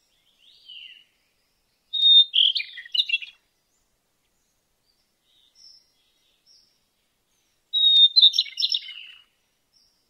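A songbird singing two phrases about six seconds apart. Each opens with a high steady whistle and breaks into a quick jumble of chirping notes. A few faint short chirps come between the phrases.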